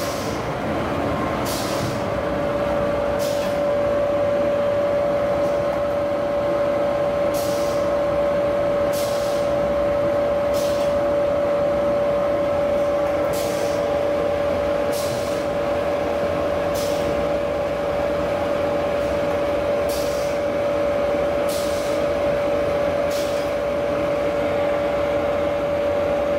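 Continuous toilet-paper rewinder running at about 350 m/min: a steady mechanical hum with a constant whine. Over it come short, sharp high hisses, one every second or two, in groups.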